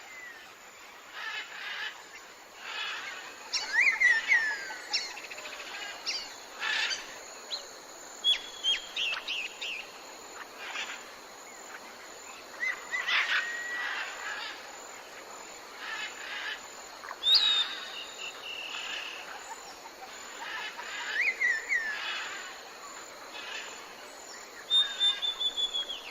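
Jungle ambience: many birds calling over a steady background hiss, with short whistles, chirps and downward-gliding calls, and a quick run of repeated notes near the end.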